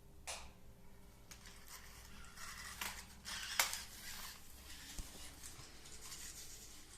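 Sony Aibo ERS-7 robot dog moving: a series of short whirs and clicks from its joint motors, with a sharper click about three and a half seconds in.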